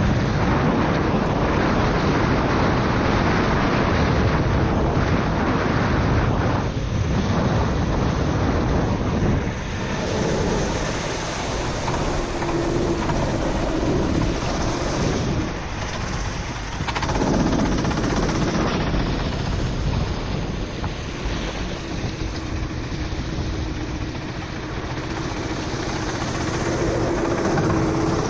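Four-stroke racing kart engine running under a steady wash of wind noise and water spray from wet tyres, with the level dipping briefly a few times.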